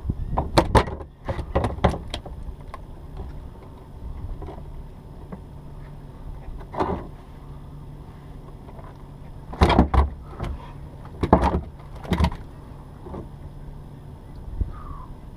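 Knocks and thumps on a small fishing boat over a steady low hum: a cluster in the first two seconds, one about seven seconds in, and several more between about ten and twelve seconds.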